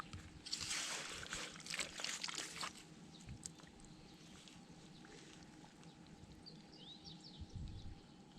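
Wet sloshing and squelching in waterlogged clay mud, several bursts close together in the first few seconds, then quieter. A few short bird chirps near the end.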